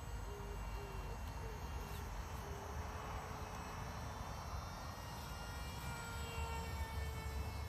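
Thin, faint whine of a tiny 0905 brushless motor and 3030 propeller on a small foam RC plane in flight, its pitch drifting and sagging slightly in the second half as the plane moves and the throttle changes. Low wind rumble on the microphone runs underneath.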